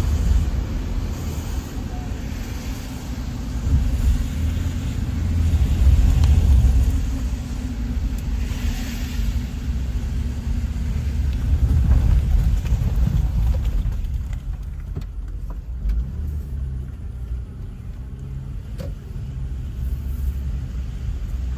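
A low, steady rumble, mostly deep, whose level swells and eases every few seconds.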